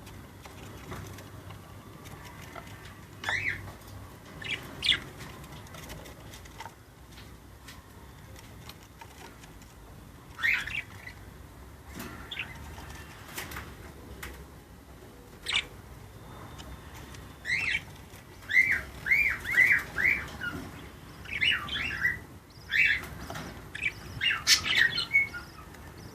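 Budgerigars chirping, parent and chicks: scattered single calls at first, then, from about two-thirds of the way in, a quick run of short squeaky chirps that rise and fall, as the chicks beg while being fed.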